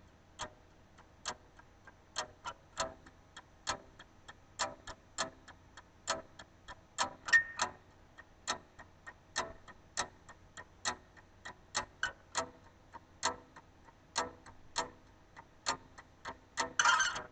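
Sharp clock-like ticks, about two a second and unevenly spaced, opening a song, with a short swell of noise near the end.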